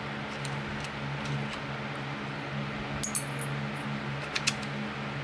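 A few light, scattered metallic clicks and clinks of small metal parts, such as screws and nuts, being handled and set into a magnetized parts tray, over a steady low hum.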